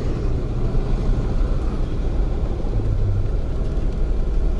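Steady low engine rumble heard from inside a car's cabin as it creeps forward onto a car ferry's vehicle deck.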